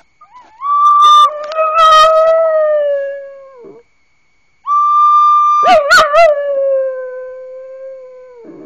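A recorder holding a steady high note while a dog howls along with it, twice. Each long howl wavers at first, then slowly sinks in pitch as it trails off.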